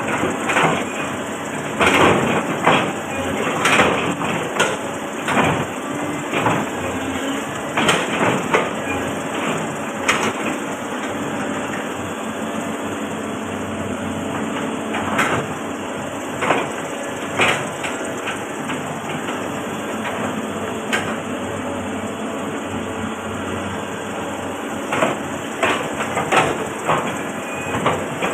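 Caterpillar 320D L excavator's diesel engine running steadily, with irregular knocks and clanks from the machine at work. The knocks come thick in the first ten seconds and near the end, and thin out in the middle.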